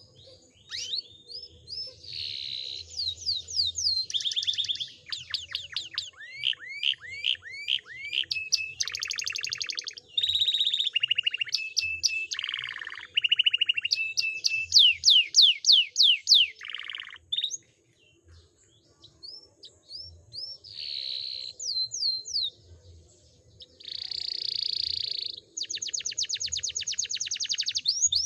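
Domestic canary singing a long, varied song of fast trills, repeated down-slurred notes and buzzy rolls, with a short pause about eighteen seconds in.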